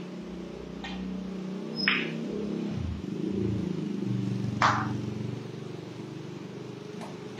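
A pool shot: a sharp click of the cue striking the cue ball about two seconds in, then a louder clack of billiard balls a little past halfway. A steady low engine hum runs underneath.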